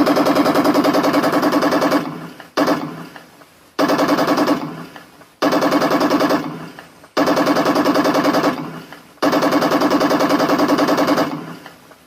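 Machine-gun firing sound from a remote-control tank's sound unit, played through a small speaker as a very fast, even rattle. It comes in about six bursts of one to two seconds, each trailing off before the next.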